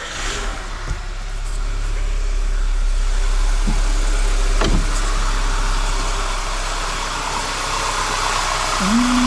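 The stage-3-tuned turbo engine of a Skoda Octavia A5 running at idle just after starting, with the engine cut in for an automatic-transmission fluid flush. It is a steady low hum with a hiss that grows louder over the first few seconds, and there are a few faint clicks.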